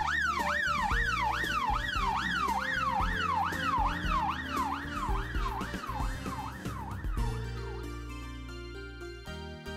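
Emergency vehicle siren in fast yelp mode: a rapid rising-and-falling wail, about two and a half sweeps a second, that fades out about seven seconds in, over background music with a steady low beat.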